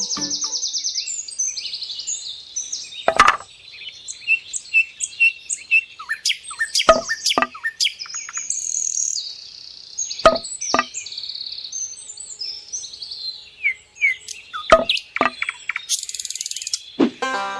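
Songbirds chirping and trilling in quick high notes, with several sharp taps or clicks scattered through. Music comes in near the end.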